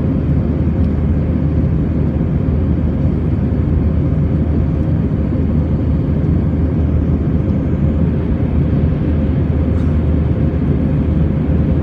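Steady cabin noise of an Airbus A320-family jet airliner climbing after takeoff, heard from a window seat over the wing: an even rumble of engines and airflow with a faint steady hum.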